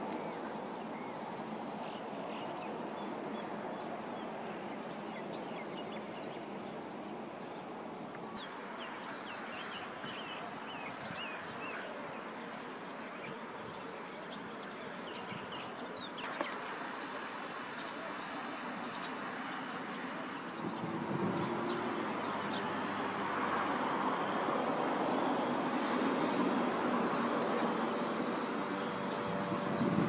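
Outdoor field ambience: a steady background hiss with scattered short, high bird chirps. There are two sharp clicks in the middle, and the background grows louder for the last third.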